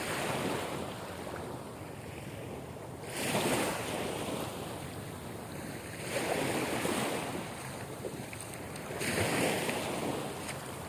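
Ocean waves washing in, swelling in a surge about every three seconds.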